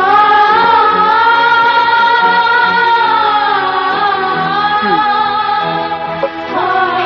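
Sad Bangla ringtone music: a long held, slightly wavering melody note over soft accompaniment, with a new phrase starting near the end.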